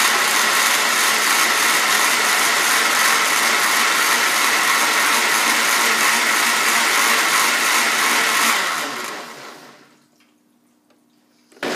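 Countertop blender running steadily, blending hot coffee with butter. It is switched off about nine seconds in and winds down to near silence, then starts up again just before the end.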